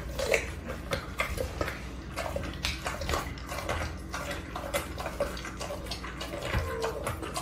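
Dog licking and gnawing at a whole raw chicken: irregular wet smacking and slurping with sharp clicks.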